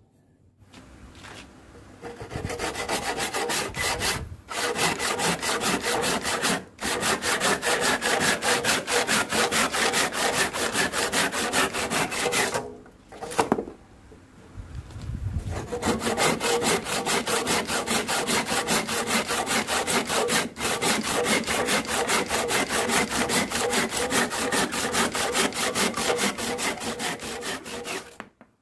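Freshly sharpened crosscut hand saw cutting through wood in quick, even strokes. The sawing stops briefly a few times and pauses for about two seconds near the middle.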